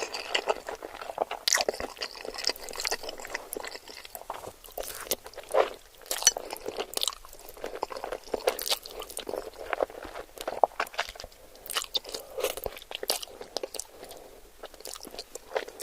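Close-miked eating sounds of spaghetti being chewed: irregular wet smacks and clicks of the mouth and noodles.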